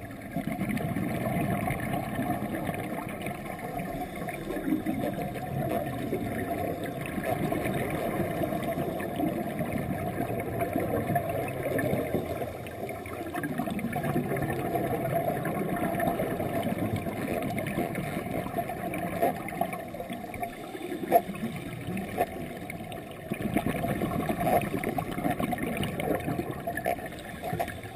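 Scuba regulator breathing heard underwater: exhaled bubbles gurgling in long swells that ease every several seconds between breaths, with a few sharp clicks in the second half.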